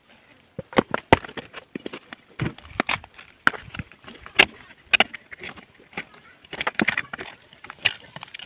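Irregular sharp knocks and cracks of grilled, charred turtle shell being broken apart and handled with a knife on a bamboo-slat table.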